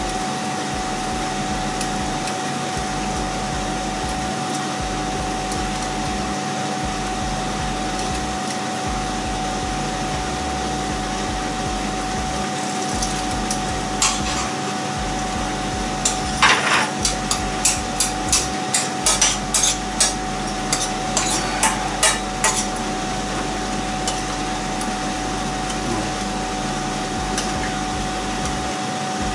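A steady fan-like hum throughout, and from about halfway a run of quick taps and knocks from a cooking utensil as hard, set coconut milk is worked into the pan, lasting about ten seconds.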